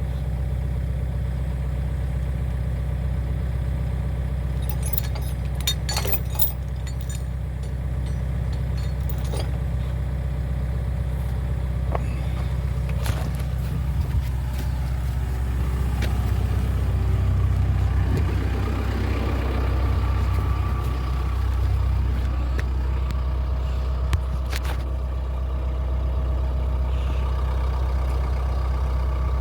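Excavator's diesel engine running steadily, working harder for a few seconds past the middle. A quick run of sharp clicks and knocks comes about five to seven seconds in, and a single knock near the end.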